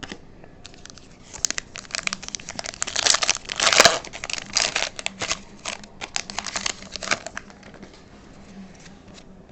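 Foil wrapper of a trading card pack crinkling and tearing as it is opened by hand: a dense run of sharp crackles, loudest a little before the middle, dying away near the end.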